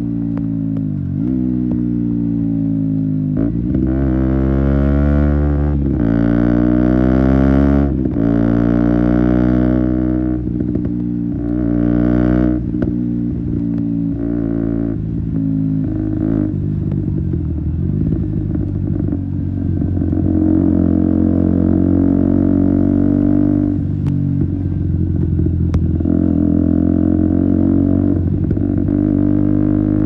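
2017 KTM Duke 125's single-cylinder four-stroke engine through an Akrapovic exhaust with a decat link pipe, accelerating hard up through the gears. The pitch rises and drops back at each of about five shifts in the first half, then the engine runs steadier at cruising revs.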